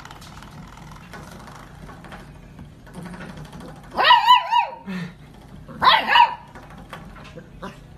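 Golden retriever puppy giving two high yipping barks, about four and six seconds in.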